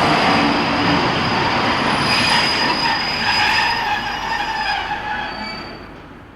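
Train arriving: a dense, steady rumble and hiss with high-pitched wheel and brake squeals in the middle, fading out near the end.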